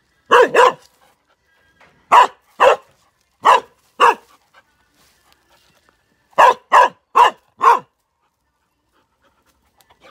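A dog barking at a snake it has cornered. There are about ten sharp barks, mostly in pairs, then a quick run of four, with a quiet stretch near the end.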